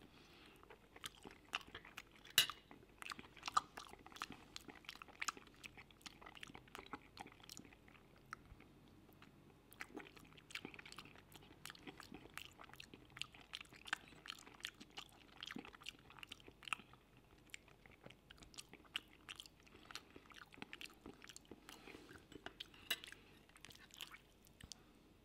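Close-miked chewing of creamy mushroom pasta: a dense, irregular run of soft wet mouth clicks and smacks. Near the end, a few clinks of knife and fork on the plate.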